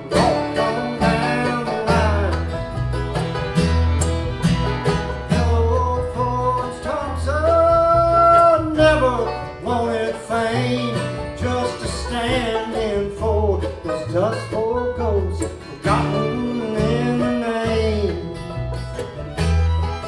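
Country/bluegrass-style band playing an instrumental passage: picked banjo and guitar over a steady bass line, with a melodic lead line carrying the tune.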